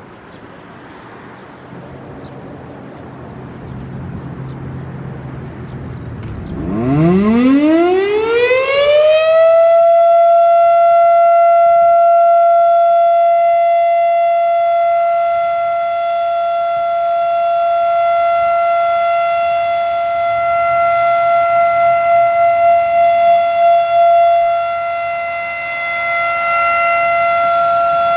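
Federal Signal Thunderbeam RSH-10 outdoor warning siren starting up on its Alert signal. A low rumble grows louder for several seconds. About seven seconds in, the tone sweeps up and settles into one loud, steady high wail, which wavers in loudness near the end.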